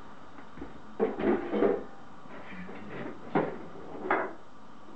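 Cookware clattering around a large stainless steel stockpot on a gas hob: about five short knocks, three close together about a second in and two more near the end, over a steady background hiss.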